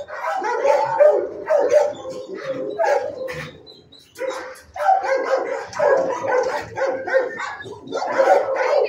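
Many shelter dogs in neighbouring kennels barking at once, overlapping. The barking eases into a brief lull about three and a half seconds in, then picks up again.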